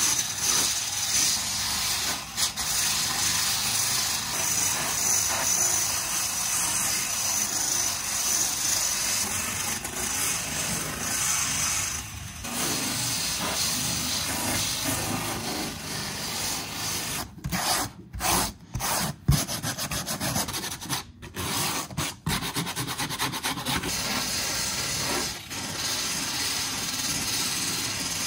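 Variable-speed power tool with a nylon brush scrubbing the old crumbling foam backing off a car headliner board, a steady rubbing, abrasive sound. It cuts out briefly several times about two-thirds of the way through, then carries on.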